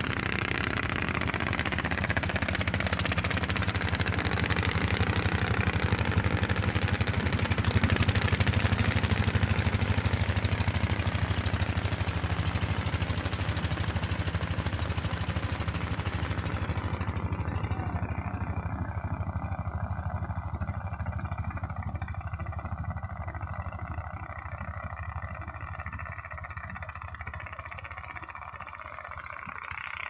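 Wooden engine boat's motor running steadily, with water rushing along the hull. The sound is loudest about a quarter of the way in, then eases and grows gradually quieter over the second half.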